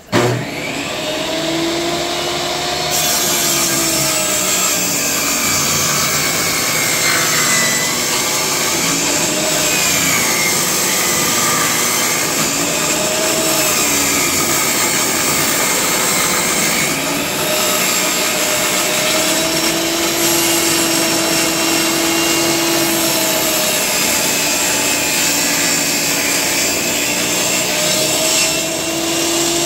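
Makita MLT100 table saw switched on and ripping a length of softwood structural lumber along its fence: the motor and blade start abruptly, then run steadily, the whine wavering up and down in pitch as the board is fed through the blade.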